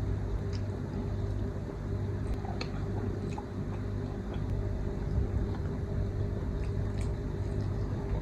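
Steady low hum with faint, scattered clicks and taps.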